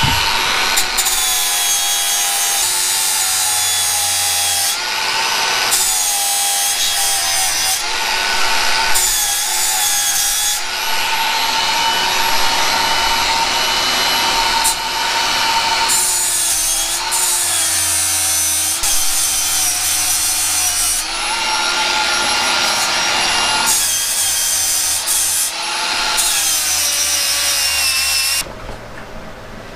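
Electric angle grinder grinding the end of a Hobart dough mixer's broken metal shaft held in a vise. It runs continuously in repeated passes, with a steady motor whine that dips under load and a harsh grinding hiss that swells and eases, then stops suddenly near the end. The grinding prepares the broken shaft for MIG welding.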